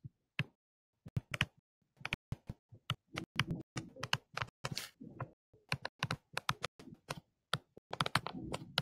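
Stylus pen tip tapping and scratching in quick, irregular strokes while words are handwritten in digital ink. The clicks pause for about a second and a half near the start, then resume thick and fast.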